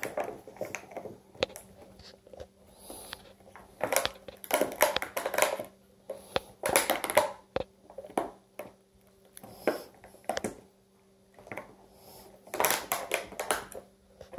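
Thin clear plastic clamshell package crackling and clicking as a cat bites and paws at it, in several short bursts of crinkling with single clicks between. A faint steady hum runs underneath.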